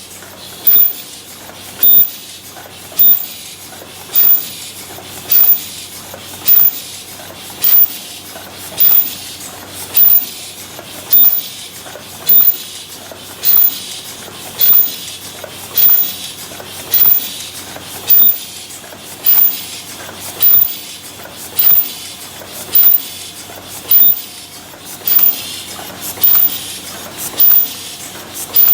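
Paper cup forming machine running while making 22 oz cups: a steady mechanical clatter with a loud, short, sharp high-pitched burst repeating evenly about once a second.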